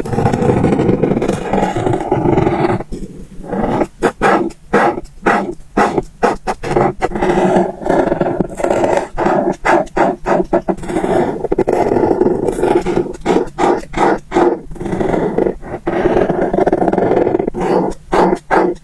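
Marker pen scratching on paper in close-up, rough back-and-forth strokes: some long runs of shading, some short quick strokes a few per second.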